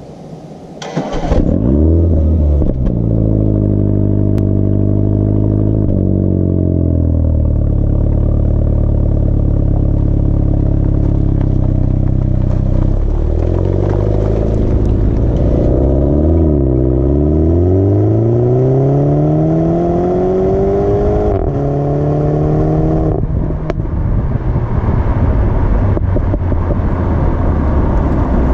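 Mini Countryman John Cooper Works turbocharged four-cylinder heard at the tailpipe. It starts about a second in with a rev flare that settles to a steady idle. It is revved up and down a few times, then climbs in one long rising rev, drops in pitch, and runs steadily with tyre and road noise as the car drives.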